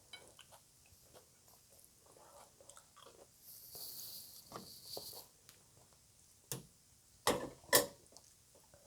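Close-miked chewing of crunchy green papaya salad (som tam): small wet clicks and mouth sounds, then a few sharp crunching bites about two-thirds of the way through, the loudest near the end.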